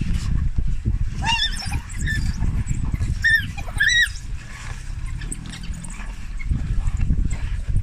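African wild dog pack crowding and feeding on a carcass: a few short, high-pitched squealing calls between about one and four seconds in, over a continuous low jumble of scuffling and feeding noise.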